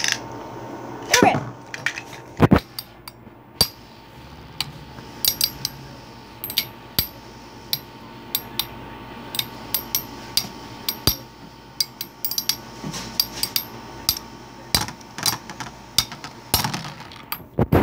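Two Beyblade spinning tops clashing as they spin in a plastic tub stadium: irregular sharp clacks and clinks, with two loud knocks in the first few seconds.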